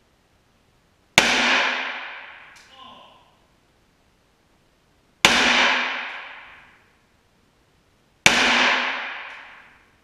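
.357 Magnum gunshots: three shots, the second about four seconds after the first and the third about three seconds later, each echoing off the walls of an indoor shooting range and dying away over about two seconds.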